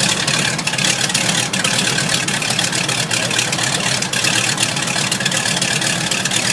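An engine running steadily, a continuous loud noise with a crackly edge.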